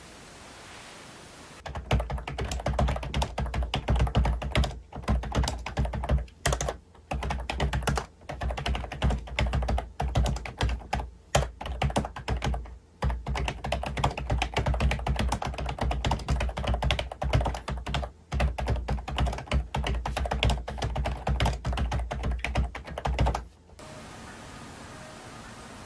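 Fast, continuous typing on a low-profile computer keyboard: rapid, irregular key clicks with short pauses. It starts about two seconds in and stops a couple of seconds before the end, leaving a faint steady hiss.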